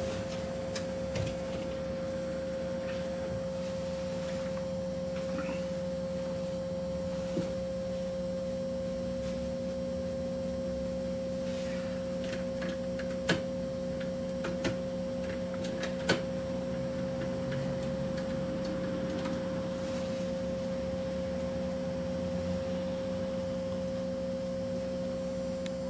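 Steady electrical hum with a high whine inside an electric city bus standing still, with a few faint clicks.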